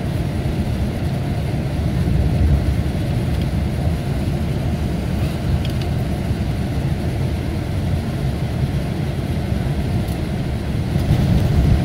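Mercedes-Benz O-500RSD coach's diesel engine running steadily with a deep, even rumble.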